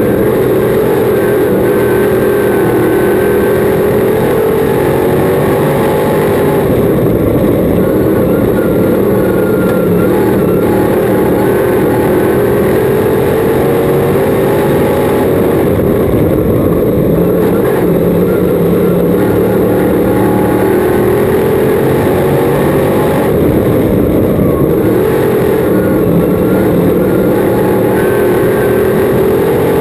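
Crate modified race car's crate V8 engine at racing speed, heard from the cockpit. Its pitch climbs and drops again and again, every several seconds, as the throttle is worked lap after lap.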